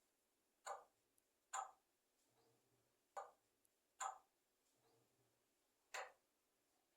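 A pet parrot making five short, sharp clicking sounds, unevenly spaced about one to two seconds apart.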